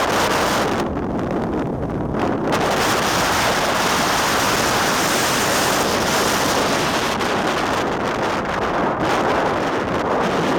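Storm-driven lake waves breaking and churning under strong wind, with wind buffeting the microphone in a loud, steady rush.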